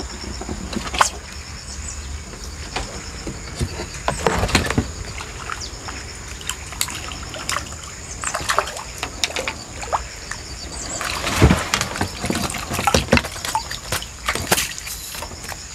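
Water splashing and sloshing as a hooked crucian carp thrashes at the surface of a pond and is lifted out, with scattered sharp knocks and clicks of tackle and a landing net. A steady high-pitched insect drone runs underneath.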